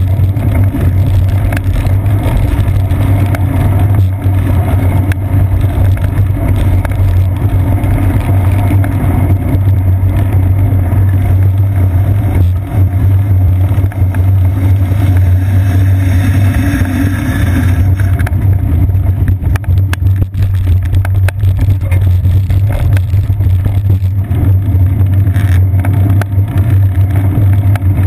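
Loud, steady low rumble of wind and road vibration picked up by a seat-post-mounted GoPro Hero 2 in its housing on a bicycle riding over a wet road, with a run of small knocks and clicks about two-thirds of the way through.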